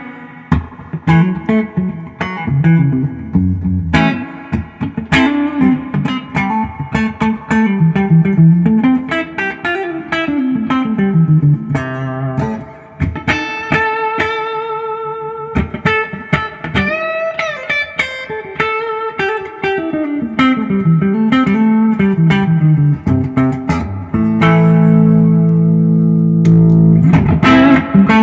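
2017 Duesenberg Starplayer Special electric guitar on its neck pickup, set halfway between single coil and humbucker, played through a Fender '65 Reissue Deluxe Reverb amp. It plays a melodic run of plucked single notes with a bent note about two-thirds of the way through, and ends on a held chord.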